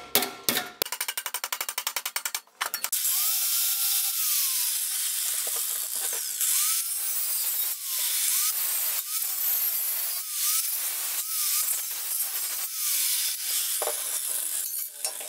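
Angle grinder with a cutting disc cutting into a thin stainless steel container: a dense, high metal-cutting hiss, with the motor's pitch dipping and recovering again and again as the disc bites into each cut. Before it, for the first few seconds, a fast even run of clicks.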